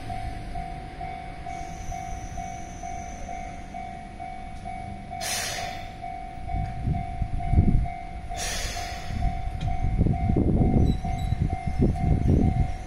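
Japanese level-crossing warning bell ringing in an even, rapid clang as a Keihan 700-series train pulls away. Two short hisses come about five and eight seconds in, then the low rumble of the train's motors and wheels builds and is loudest near the end.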